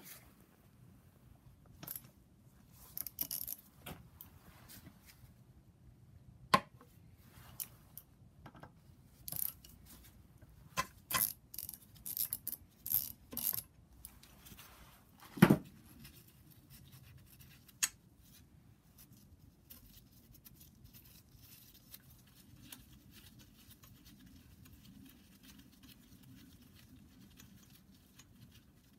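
Scattered metallic clicks and clinks of hand tools and bolts on a camshaft-locking jig bolted to a BMW N54 cylinder head as its top bolts are taken out, with one louder knock about halfway through. The last ten seconds are quieter.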